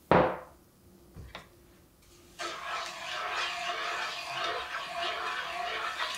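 A glass bowl set down on the table with a sharp knock, two light taps about a second later, then a wooden spatula stirring milk and sugar in a nonstick frying pan, a steady scraping from about two and a half seconds in.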